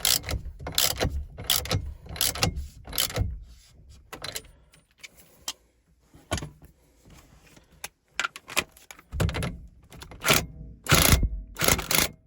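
Hand socket ratchet clicking in short strokes as a steering wheel's centre nut is snugged down. A run of strokes comes first, then a quieter pause, then more strokes from about two-thirds of the way through.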